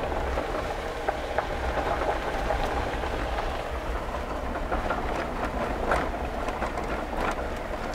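Road noise inside a vehicle driving on a gravel road, with an open side window: a steady low rumble and tyre noise, with scattered sharp clicks and rattles, the loudest about six seconds in and again a little later.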